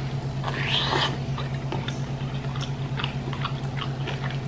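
A person biting into a large sauce-covered bakso meatball and chewing it: close, moist mouth sounds with many short clicks, several a second, over a steady low hum.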